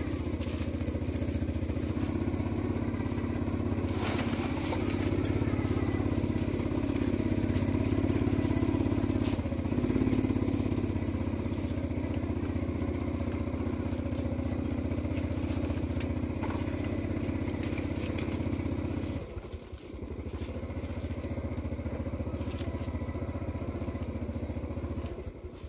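Small motorcycle engine running steadily at low speed, easing off to a quieter, lower note about nineteen seconds in.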